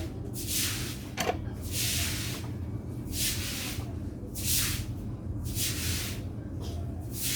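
Short hissing strokes, repeating about once a second, over a steady low hum.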